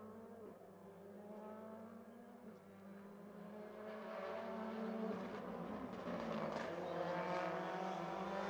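A rally car's engine approaching on a special stage, growing louder through the second half.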